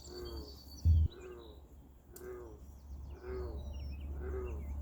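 Birds calling at a pond: a low call repeated about once a second, with short high chirps over it. A single dull thump about a second in.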